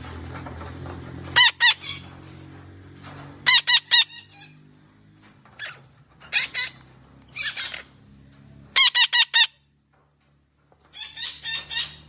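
Derbyan parakeet calling in loud, shrill squawks. They come in about seven quick runs of one to four calls each, a second or two apart.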